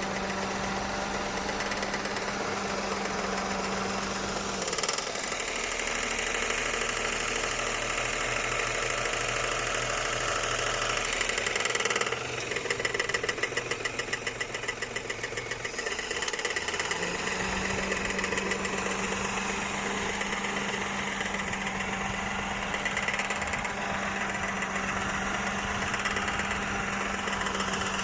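Engine running with an abnormal noise. Its sound shifts a few times, with a stretch of rapid even pulsing about halfway through.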